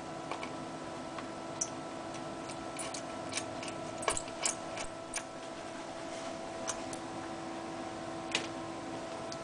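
Scattered small clicks and taps of laptop parts and screws being handled during a hard drive swap, over a steady hum. The clicks bunch up in the first half, with a lone one near the end.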